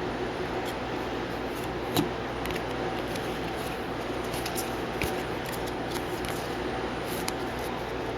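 Trading cards and foil packs being handled: scattered light clicks and taps, with one sharper tap about two seconds in, over a steady electrical hum.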